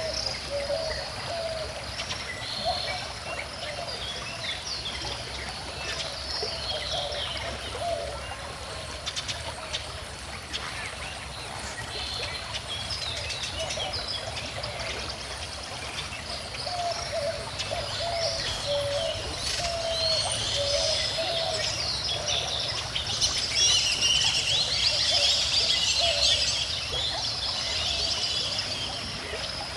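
A calm river flowing steadily, with many birds chirping and singing over it; the birdsong grows busier and louder about three-quarters of the way through.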